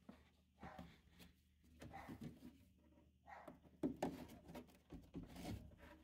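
Faint handling noises from work-gloved hands rubbing and knocking against furnace parts and plastic tubing: scattered rustles and light knocks, the loudest about four seconds in, over a faint steady low hum.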